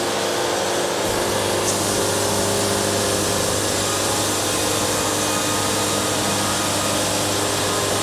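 Wood-Mizer LT70 band sawmill, diesel engine running, its bandsaw blade cutting a board off a walnut log: a steady whir of saw and machine, with a low rumble joining about a second in.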